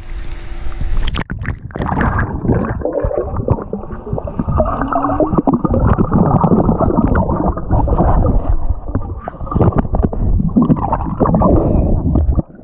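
Muffled gurgling and sloshing of pool water, as heard with the microphone underwater. The muffling sets in suddenly about a second in.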